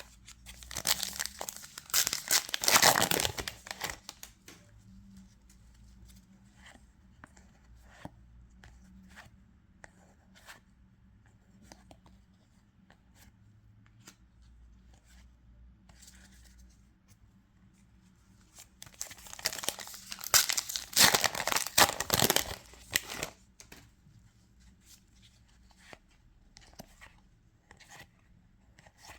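Booster-pack wrappers being torn open with crinkling, twice: once just after the start and again about two-thirds of the way through. Light rustles and clicks of cards being handled come in between.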